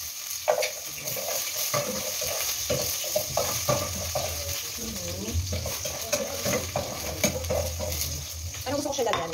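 Chopped garlic spooned into hot cooking oil in a steel pot, sizzling steadily, with the spoon clinking against the plate and pot.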